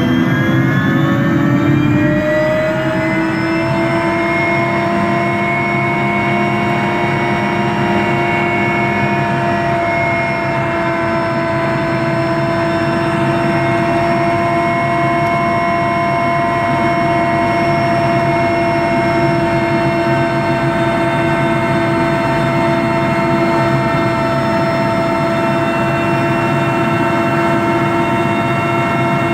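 Helicopter turbine engines and main rotor running on the ground, heard from inside the cabin: several tones rise in pitch over the first few seconds, then hold as a steady whine over a loud constant rush.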